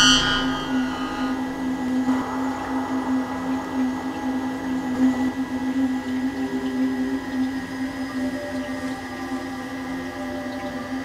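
Eerie electronic drone: a steady low hum with faint held tones above it. It opens with a bright chiming tone that fades within about a second.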